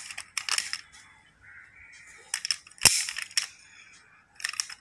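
Kinsmart die-cast BMW X6 model car being handled: a run of small clicks and taps, with one sharp snap about three seconds in as its opening door is pushed shut.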